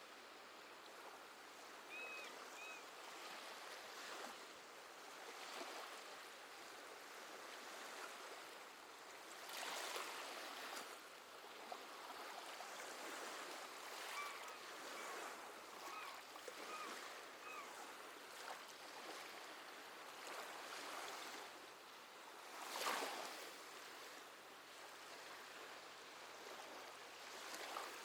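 Gentle sea waves washing in and out, with stronger washes about a third of the way in and again near the end. Seabirds give two short chirping calls early and a run of about six short calls in the middle.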